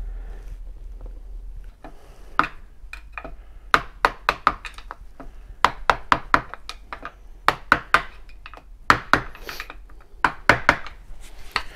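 Hammer tapping a hand tool held against a transfer case housing: a long series of sharp metal knocks in quick clusters of two to four, starting about two seconds in.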